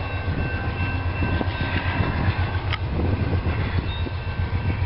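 CSX GE C40-8 diesel-electric locomotives running at the head of an approaching autorack freight train, a steady low, pulsing engine sound, with a sharp click about three seconds in.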